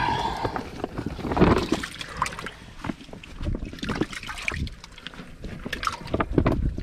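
Wet fish weigh-in bag being handled, with water sloshing and dripping and irregular knocks.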